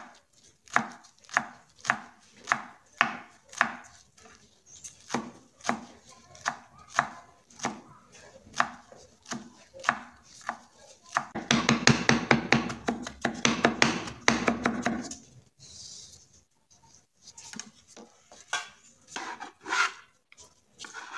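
Chef's knife chopping fresh parsley on a wooden cutting board: separate strokes a little over two a second, then a fast run of rapid chopping for about four seconds just past the middle. Near the end a metal bench scraper scrapes the chopped parsley together on the board.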